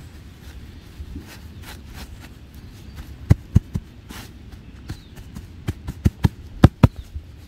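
Dull, low thumps in two quick clusters, three and then five, over a steady low rumble.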